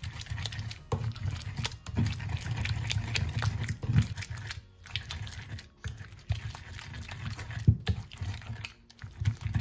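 Wooden pestle grinding turkey berries and garden eggs in a grinding bowl: wet squelching and mashing, with many irregular knocks of the pestle against the bowl.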